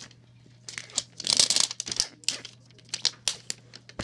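Wrapper being torn and peeled off a giant plastic toy egg, crinkling and ripping in quick bursts. The tearing starts under a second in and is loudest around a second and a half in, then continues in shorter crackles.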